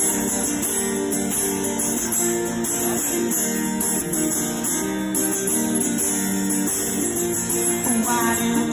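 Acoustic guitar strummed in an instrumental passage, its chords ringing on at a steady level with no singing over them.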